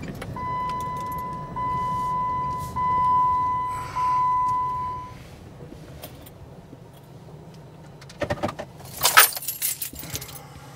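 A vehicle horn sounding four times in quick succession, the blasts running almost into each other and getting louder, over a low engine idle. A few seconds later, a short burst of metallic jangling and clicks.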